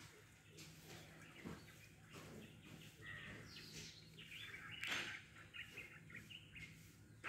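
Faint chirping of small birds in quiet open-country ambience, with a steady low hum underneath. A brief rustle-like crackle comes about a second and a half in, and a louder one about five seconds in.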